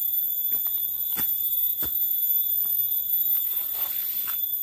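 A steady, high-pitched insect drone holding one ringing pitch, with fainter higher tones above it. Footsteps crunch on dry leaf litter about every two-thirds of a second.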